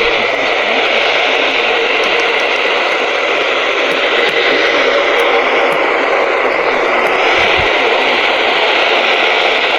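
Steady hiss of radio static from a receiver tuned to a weak NOAA Weather Radio signal on the 162 MHz band, with no voice or alarm tone coming through.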